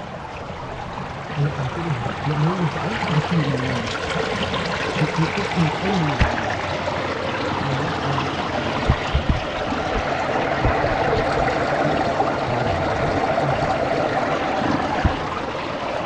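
Running water flowing and trickling over stones, a steady rushing sound, with a few low knocks along the way.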